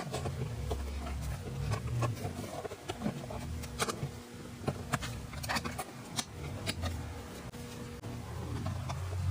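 Scattered small clicks and taps of hard plastic trim being handled as screw covers are pried out of a car's interior door panel, over a low steady hum.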